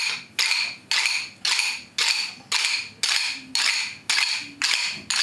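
A class of rhythm sticks tapped together in unison on a steady beat, about two clicks a second, each click with a short ring.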